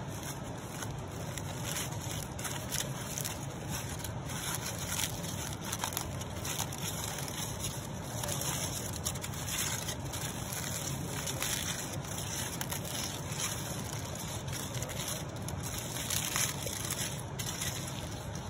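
Aluminium foil crinkling and rustling as a foil parcel is unwrapped by hand, in irregular crackly bursts over a steady low rush.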